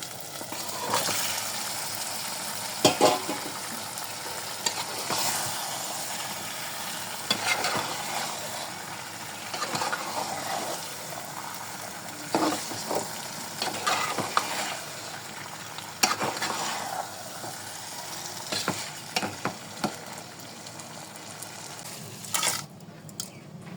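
Food sizzling as it fries in oil in a cooking pan, stirred with a spoon that knocks and scrapes against the pan at irregular moments. The sizzling drops away near the end.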